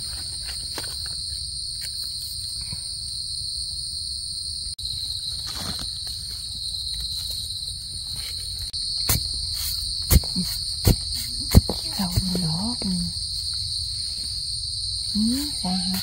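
Steady, high-pitched drone of insects calling without a break, with a few sharp clicks about nine to twelve seconds in.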